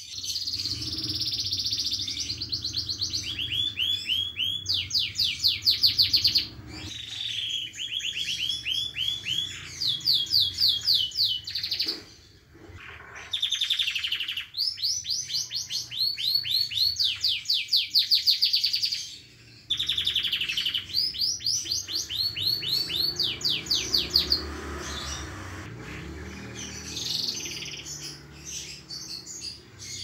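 Domestic canary in moult singing in long phrases of fast repeated-note trills, each phrase switching from one note type to another, with short breaks about 12 and 20 seconds in.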